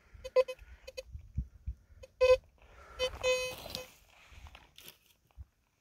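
Teknetics T2 SE metal detector giving target tones as its coil sweeps over a dug hole: several short beeps in the first seconds, a louder one just after two seconds, then a longer tone about three seconds in. Soft thumps and scuffs from the coil and boots on gravelly soil sit underneath.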